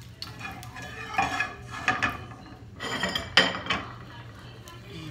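Kitchenware clattering: metal tongs and a ceramic serving bowl knocking together in several separate clinks, the loudest a little over three seconds in.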